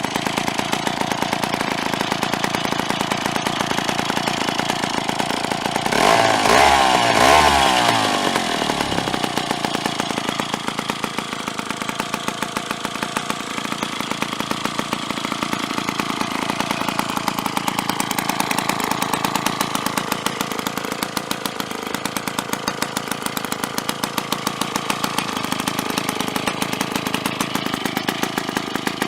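Jobu 93 chainsaw's 93 cc single-cylinder two-stroke engine running at idle with an even firing beat. About six seconds in it is revved up briefly, the pitch rising and falling, then it settles back to idle.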